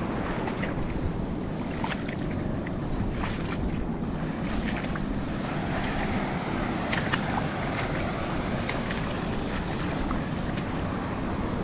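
Small waves washing in over a shallow, sargassum-choked shore, with a steady rumble of wind on the microphone. Many small ticks and trickles of water sound through it at irregular moments.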